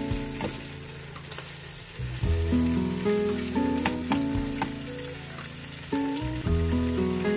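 Tuna, onion and tomato sizzling in a non-stick frying pan while a plastic slotted spatula stirs and scrapes it, with short clicks from the spatula on the pan. Background music with held notes and a bass line plays over it.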